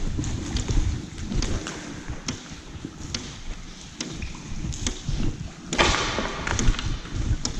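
Footsteps at a steady walking pace, a little more than one step a second, over a low rumble, with a louder scuff about six seconds in.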